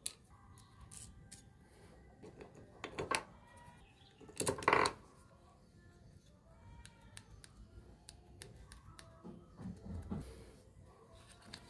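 Small clicks and knocks of metal ball bearings and washers being handled and fitted onto bolts in a plywood blade-guide block. The loudest cluster of knocks comes about four and a half seconds in.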